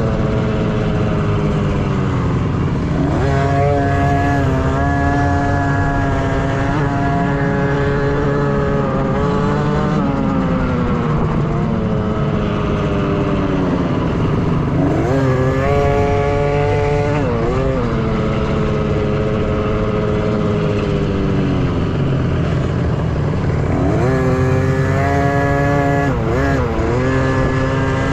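Youth 50cc two-stroke dirt bike engines racing off-road. The engine note climbs steeply several times as the throttle is opened, holds high and eases back, over a steady low engine rumble.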